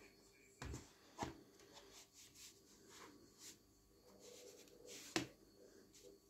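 A cardboard CD digipak with clear plastic disc trays handled and opened: soft rubbing and sliding of card under the hands, with light knocks about a second in and a sharper click about five seconds in.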